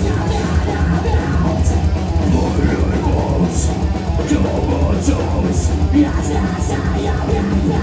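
Heavy metal band playing live and loud: distorted guitars, bass and drums, with repeated cymbal hits.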